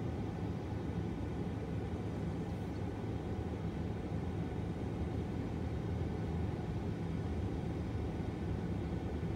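Steady low rumble of a long freight train of autorack cars rolling past, heard from inside a car, with a faint steady hum underneath.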